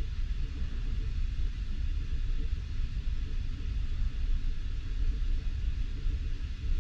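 Steady low rumble with a faint hiss inside a passenger train carriage while the train stands before departure.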